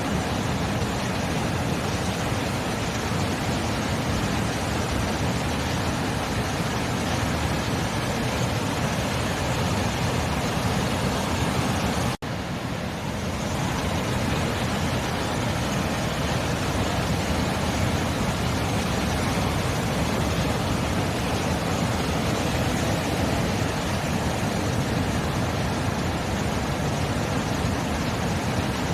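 Sea surf: a steady, even wash of waves with no distinct breakers standing out, broken by a momentary dropout about twelve seconds in.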